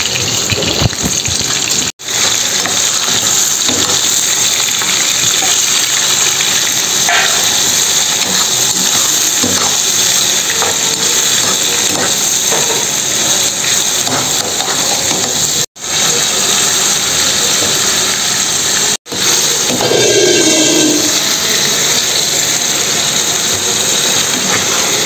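Hot oil sizzling steadily in a frying pan as tomato pieces fry, with the occasional scrape of a steel spoon stirring them. The sizzle is broken off for an instant a few times.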